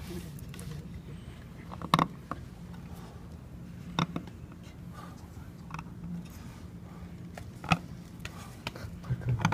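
Seal-carving knife cutting into a stone seal clamped in a wooden seal vise: soft scraping and short sharp clicks as the blade chips the stone, the loudest clicks about two, four and seven and a half seconds in. A steady low hum runs underneath.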